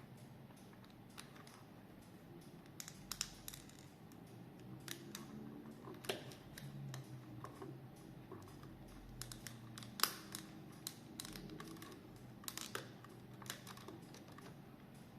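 Light, irregular plastic clicks and taps as a screwdriver pries at the snap clips of a quartz clock movement's plastic case, with a sharper click about 6 s in and another about 10 s in.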